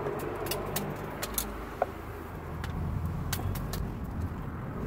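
Wood fire burning in a small metal box stove: scattered sharp crackles and pops over a steady low rumble, with one short ringing note a little under two seconds in.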